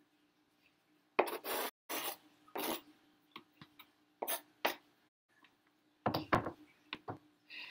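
Kitchen knife blade scraping minced garlic across a plastic cutting board: three long scrapes, then two shorter ones. About six seconds in come a few sharper knocks as the board is set down on the counter.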